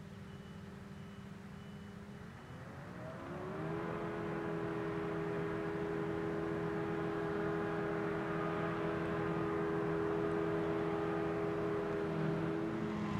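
Tractor's diesel engine running steadily, then revving up a couple of seconds in and holding at the higher engine speed, louder than before.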